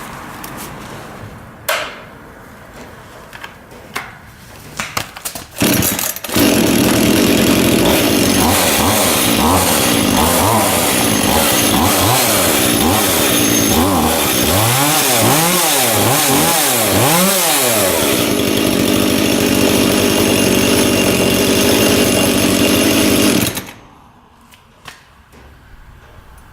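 Makita chainsaw with a freshly fitted chain, test-run: a few handling clicks, then the saw starts suddenly and runs loud and steady for about 17 seconds. Its pitch swells and falls several times in the middle before it cuts off abruptly.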